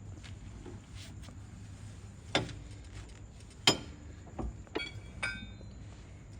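Metal clinking and knocking: two sharp knocks, then a few lighter clinks that ring briefly, like hand tools being handled against metal.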